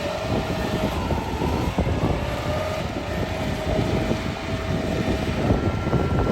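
Kubota DC688Q combine harvester running steadily while cutting rice, a dense continuous machine noise with a faint thin whine over it.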